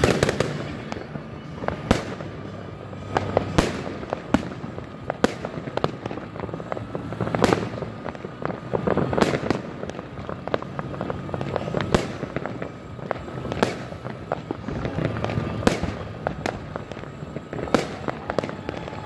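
Fireworks going off all around: sharp, loud bangs every second or two, irregularly spaced, over a continuous din of many more distant explosions.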